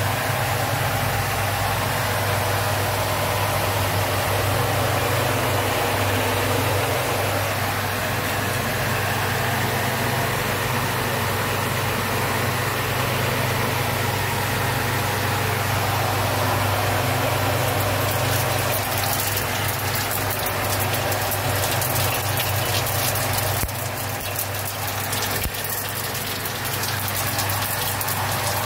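Steady low hum and rushing noise from the stove under a large aluminium cooking pot. From about two-thirds of the way through, dense crackling sizzle joins in.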